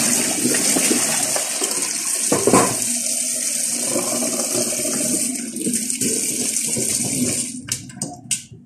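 Kitchen tap running in a steady stream into a stainless-steel sink while beef is rinsed beside it; the flow stops near the end, followed by a few short knocks.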